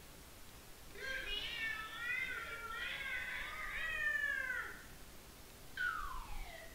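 A cartoon cat voice singing a long, wavering, meow-like yowl for about four seconds, then a short falling tone near the end.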